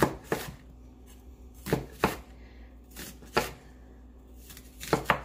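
Kitchen knife slicing through a red onion and knocking on a wooden cutting board: sharp strikes, mostly in pairs, about every second and a half.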